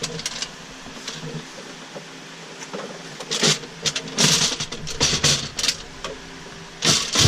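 Metal parts and tools being handled, several sharp clinks and clatters over a faint steady hum.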